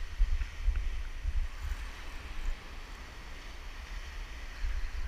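Wind buffeting the microphone in uneven gusts, over a steady hiss of surf breaking on the beach.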